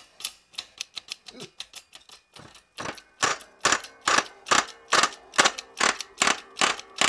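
Hand-pumped hydraulic shop press being worked to push a freezer-chilled bearing into a supercharger pulley. It makes a run of sharp metallic clicks, faint and uneven at first, then about three seconds in louder and regular at about two to three a second, one with each pump stroke.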